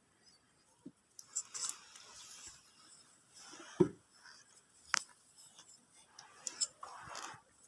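Faint handling sounds of electrical tape being wrapped around a motorcycle wiring connector: short rasping stretches of tape pulled off the roll, with scattered light clicks and taps. The loudest tap comes nearly four seconds in.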